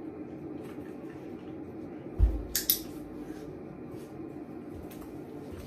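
Mesh office chair knocking and clicking as someone gets up from it: one low thump about two seconds in, followed quickly by two sharp clicks from the seat mechanism.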